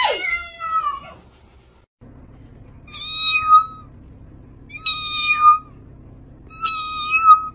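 Cat meowing three times, about two seconds apart, each call a steady held note of about half a second.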